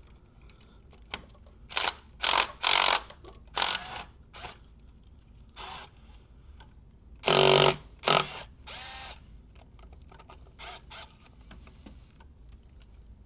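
Socket ratchet wrench clicking in about a dozen short, irregular bursts of rapid strokes as the 10 mm bolts of a thermostat housing are worked loose; the loudest burst comes a little past the middle.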